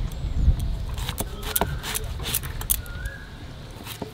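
Raw jackfruit being sliced on a boti, the Bengali fixed curved blade: a series of short, crisp cutting and knocking strokes as pieces are pushed through the blade.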